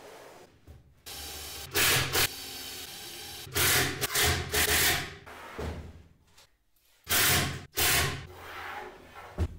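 Cordless drill/driver driving screws into the panels of a wooden drawer box: three short runs of the motor, about two seconds in, around four seconds in, and about seven seconds in, the middle one longest. A sharp click near the end.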